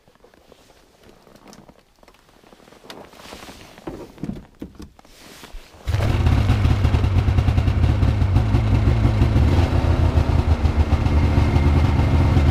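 Two-stroke snowmobile engine firing up about halfway through, after faint handling sounds, and running on with a fast, even pulsing: the flooded cylinders have been cleared and it starts and keeps running.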